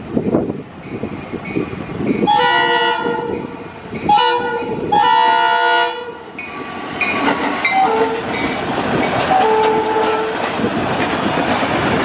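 Diesel freight locomotive's air horn blowing the grade-crossing signal: a long blast, a short one and another long one. From about six seconds in, the locomotive and its cars run past with a steady rumble and wheels clattering over the rails.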